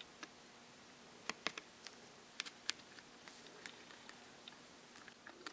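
Faint, irregular small clicks and ticks of fingers setting tiny wire nails into holes in a thin plastic base, over quiet room tone with a faint steady low hum.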